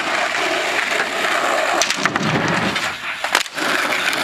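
Skateboard wheels rolling over rough asphalt in a steady rumble, with two sharp clacks from the board.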